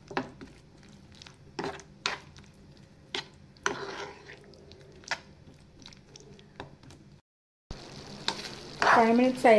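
A spoon stirring a thick mushroom masala gravy in a nonstick pan, with scattered clicks and scrapes of the spoon against the pan. After a short break about seven seconds in, the cooking gravy sizzles under more stirring.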